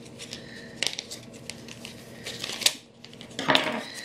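Steak knife slitting open a paper envelope: a run of short, scratchy cuts and clicks, then a louder paper rustle near the end as the envelope is handled.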